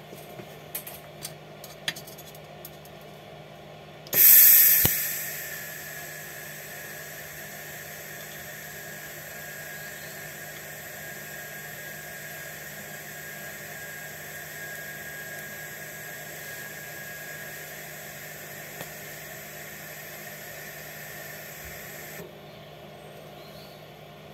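TIG welding arc on stainless steel, welding a lambda sensor boss onto a 3-inch stainless exhaust pipe. The arc strikes about four seconds in with a loud burst, settles into a steady hiss with a faint high whine, and cuts off about two seconds before the end.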